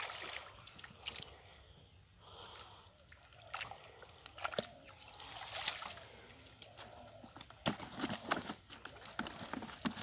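Freshly caught fish flopping and splashing in shallow water and on wet mud as they are picked out of a cast net by hand: irregular slaps and sloshes, coming thicker near the end.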